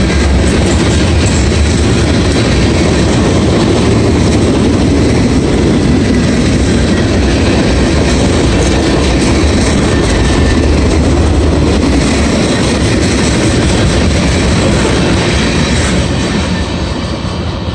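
Freight train's tank cars and covered hoppers rolling past close by on steel rails, a steady loud clatter of wheels. The sound drops away about sixteen seconds in as the last car clears.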